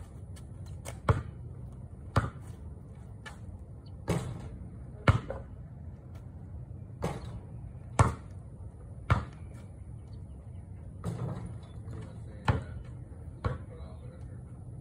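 A basketball bouncing on a paved driveway: about ten sharp thuds, roughly one a second with a couple of longer pauses.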